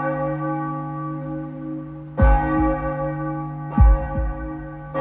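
Deep bell tolling in a dramatic soundtrack. The ring of one strike fades, then the bell is struck again about two seconds in and more softly near the four-second mark. Each of those two strikes comes with a pair of deep booming thumps like a heartbeat.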